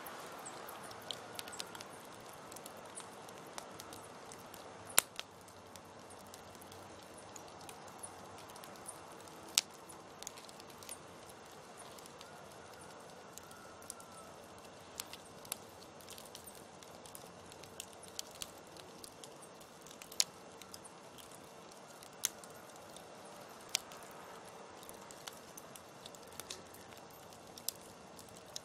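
Wood campfire crackling: irregular sharp pops and snaps, a few much louder than the rest, over a soft steady hiss of burning, with a faint steady hum underneath.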